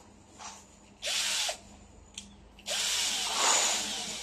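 Cordless drill-driver driving a screw into the cabinet's laminated wood panel: a short half-second run about a second in, then a longer run of about a second and a half near the end, the motor pitch rising and falling as it works.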